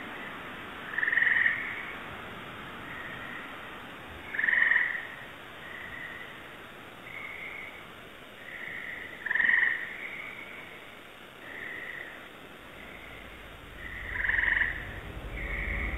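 Frogs calling at night, heard through a Ring security camera's small microphone: short calls repeating every second or two, with four louder ones about every four to five seconds.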